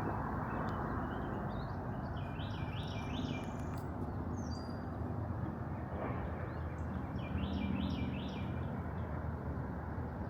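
A songbird singing, a short phrase of several quick repeated notes heard twice, about three seconds in and again near eight seconds, over a steady background rumble of distant city traffic.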